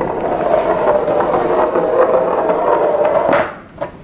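Hollow thick-walled metal cylinder rolling across a hard tabletop: a steady rolling rumble with a ringing hum, ending abruptly with a knock about three and a half seconds in.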